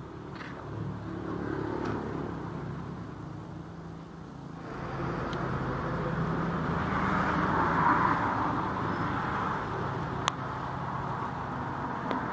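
A road vehicle driving: a steady low engine hum with road and wind noise that swells about halfway through. A single sharp click comes about ten seconds in.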